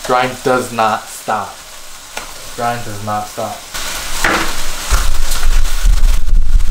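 Chicken breast pieces sizzling in oil in a frying pan. The sizzle grows much louder about four seconds in and stays loud, with a low rumble under it.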